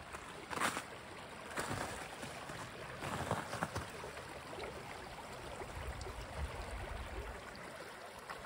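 Brook running over rocks between ice-edged banks: a steady rush of flowing water. A few crunching footsteps in snow sound within the first few seconds.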